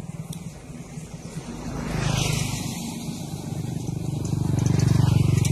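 A motor vehicle's engine running close by with a fast, even throb, swelling with road noise about two seconds in and loudest near the end as it passes.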